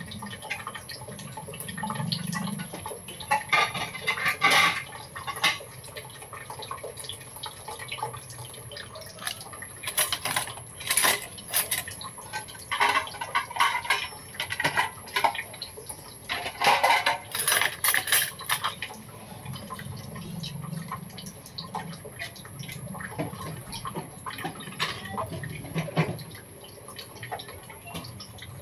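Kitchen handling sounds: coconut milk sloshing and pouring, with irregular clinks and scrapes of a metal spoon and ladle against bowls and an aluminium wok, coming in clusters.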